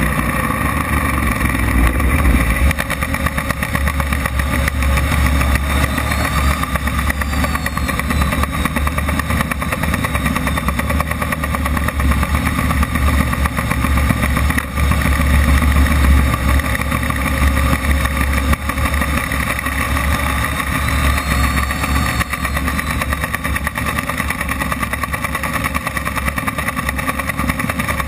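Model jet turbine running steadily at low power, heard from a camera on the airframe as the RC jet taxis on asphalt, with a steady low rumble under the engine sound.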